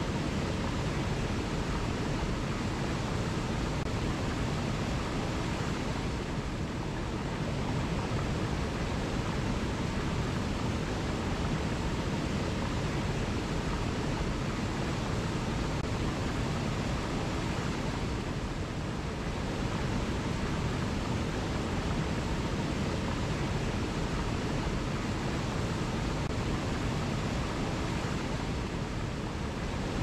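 Small forest waterfall cascading over boulders into a rocky pool: a steady, deep rush of water.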